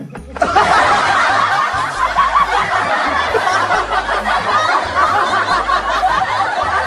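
Many people laughing loudly together, starting suddenly about half a second in and cutting off just before the end, with background music underneath.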